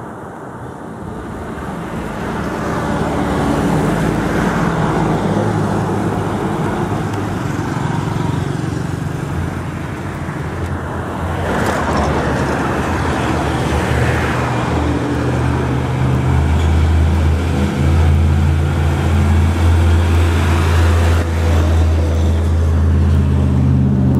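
Heavy diesel trucks and other road traffic passing close on a highway, engines running with tyre noise. A deep, steady truck-engine drone grows loudest over the last several seconds as a truck hauling heavy equipment goes by.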